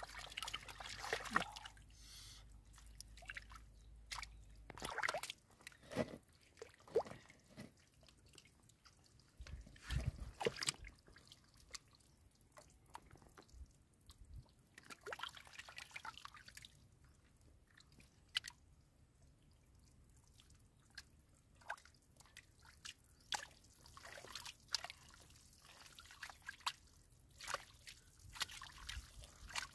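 Hands groping and scooping through shallow muddy water and soft mud: faint, irregular small splashes, squelches and drips, with a quieter lull past the middle.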